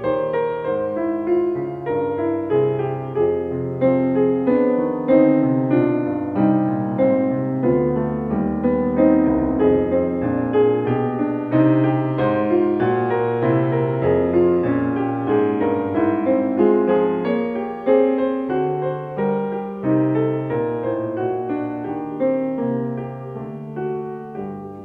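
Piano music: a steady, flowing stream of notes, growing softer near the end.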